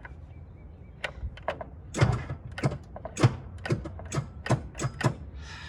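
Hand tool working on the skid steer's battery fittings: a run of sharp metal clicks and clanks, about three a second, starting about a second in and stopping shortly before the end.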